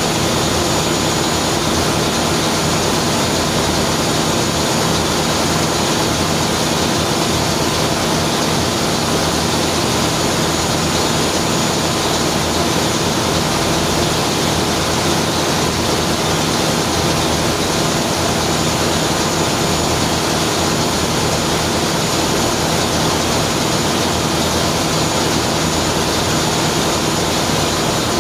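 Ship's main engine, an in-line multi-cylinder diesel, running steadily in its engine room: a loud, even machinery noise with a thin high whine running through it.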